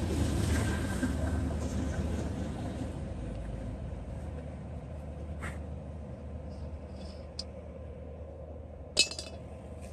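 Cooking oil heating in a pan over a wood fire: a noisy hiss that fades slowly, over a steady low rumble, with a few sharp clicks, the loudest near the end.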